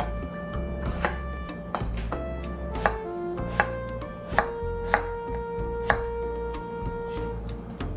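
Kitchen knife chopping a peeled potato on a cutting board: about seven sharp, uneven strikes, roughly one a second, stopping near the end.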